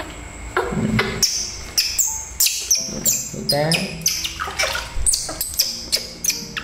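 Baby monkey giving repeated short, shrill squeaks while it is dipped into a basin of water, with light splashing of water.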